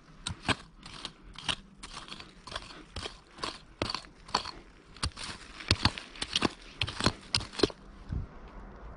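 A short-handled hand pick chopping into forest soil and leaf litter: repeated crunching strikes about two a second, coming faster and louder in the second half and stopping near the end.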